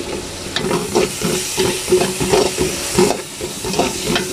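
Sliced onions and green chillies sizzling in hot oil in a large aluminium pot. A steel ladle stirs them, scraping and knocking against the pot many times over a steady hiss.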